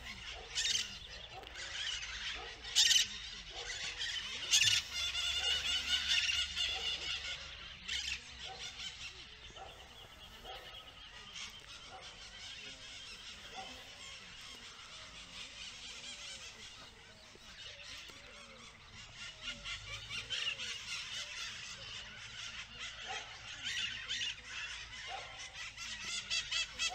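A chorus of birds calling and chirping over one another, busiest in the first eight seconds and picking up again near the end.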